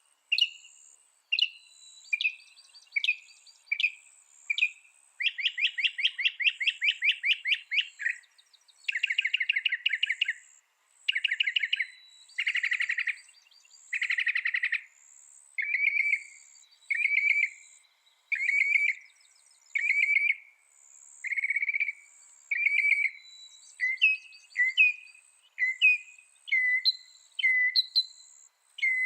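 Mockingbird singing: a long run of varied phrases, each repeated several times before switching: short chirps, fast rattling trills, buzzy notes, then a series of repeated slurred whistles. A faint high chirping repeats steadily behind it.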